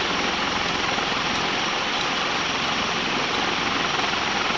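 SMC Laguna KA36 36-inch industrial ceiling fan running at full speed on its variable-speed control: a steady rush of air from the spinning blades.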